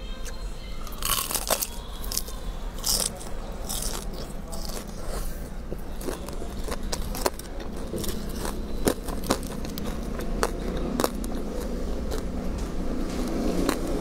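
Close-miked chewing and biting of crunchy fried food, with many short crunching clicks.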